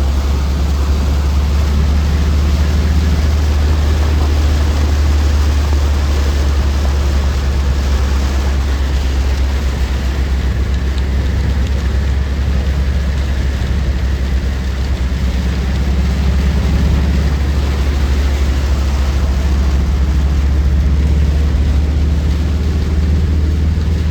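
Vehicle on the move: a steady, loud low rumble of engine and road noise with a hiss over it.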